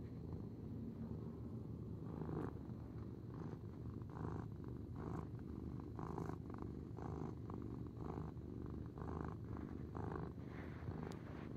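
Black kitten purring steadily while being stroked: a low, continuous rumble that swells about once a second, a happy, contented purr.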